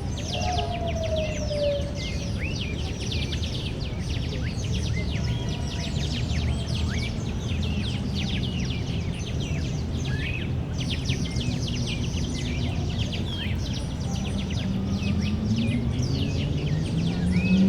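Many small birds chirping rapidly and without pause in a park, over a steady low background rumble of city noise. Near the end a low hum rises in pitch.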